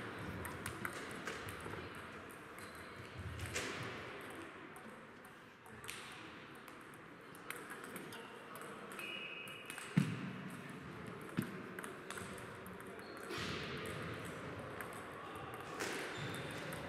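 Table tennis balls clicking sporadically off bats and tables in a sports hall, with a steady murmur of background noise and a sharper knock about ten seconds in.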